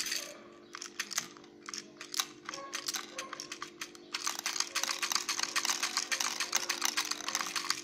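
Rapid small clicks and crackles from little plastic beads being handled, sparse at first and then a dense continuous clicking from about halfway. A steady low hum runs underneath.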